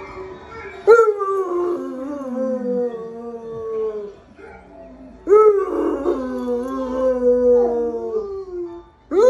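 Bernese Mountain Dog howling: two long howls, one starting about a second in and another about halfway through, each sliding lower in pitch as it goes on.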